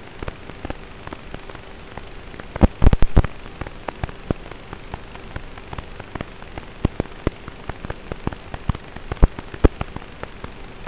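Crackling static: a steady hiss with a faint hum under it, broken by irregular sharp pops. The pops come in a loud cluster about three seconds in and again near the end.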